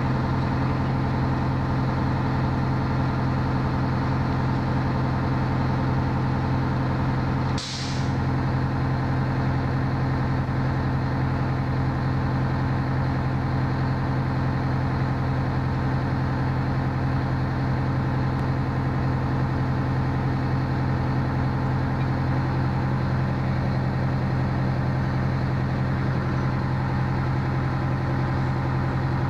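Fire engine idling steadily at the curb, a constant low hum. About eight seconds in it briefly dips, with a short hiss.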